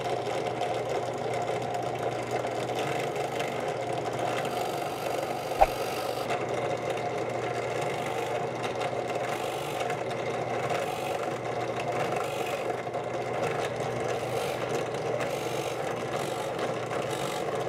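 Harbor Freight Central Machinery 8-inch 5-speed bench drill press running with a steady hum while a 3/8-inch bit drills holes in small hardwood blocks. A single sharp click about a third of the way in.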